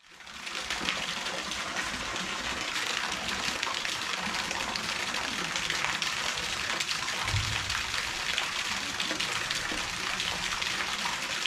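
Steady rushing noise of running water, even throughout, with a single brief low thump about seven seconds in.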